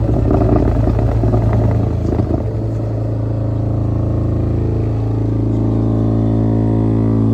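Hatz Concept Cube 2.0 electric vibratory plate compactor running under remote control: a steady low vibrating drone, rattly in the first couple of seconds, then settling into a smoother, even hum.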